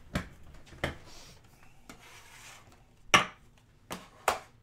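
Hand handling on a desk: a few short, sharp taps and knocks at uneven spacing, the loudest a little over three seconds in.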